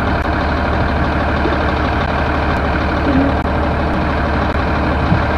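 School bus engine idling at the curb: a steady, even low hum.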